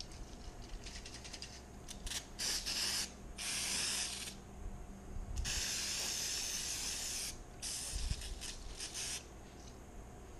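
Aerosol spray can hissing in a series of bursts: a few short puffs, then four longer sprays, the longest about two seconds near the middle.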